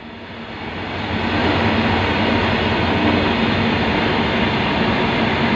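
Freight train passing on a nearby track: a steady rumble of rolling wagons that swells over the first second or so, then holds steady.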